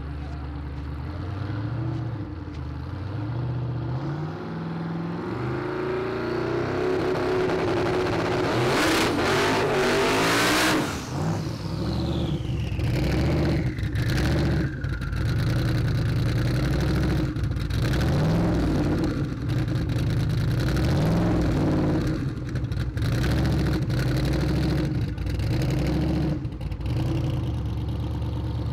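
Turbocharged Fox-body Mustang drag car's engine revving up, then a loud burnout of a few seconds with the rear tyres spinning. As it comes off the throttle a whine falls away, and the engine keeps being blipped up and down in short revs.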